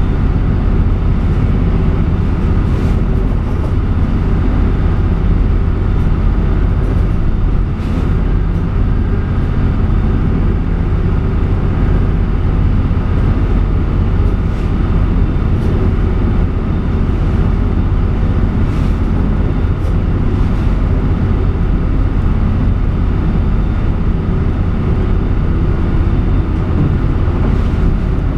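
Motorboat engine running steadily under way, heard from inside the wheelhouse as a loud, even low drone. A few short knocks come now and then as the boat meets waves and spray hits the windows.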